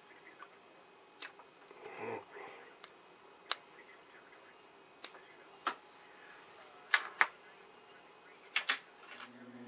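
Sharp, irregular clicks and taps of a thin metal tool against a small round plug while its center insert is pried and pushed at, about eight clicks in all. A low steady hum comes in near the end.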